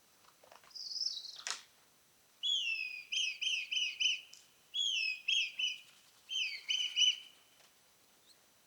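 Red kite calling: three whistled phrases, each a drawn-out falling note followed by a quick run of wavering notes, after a shorter, higher call about a second in.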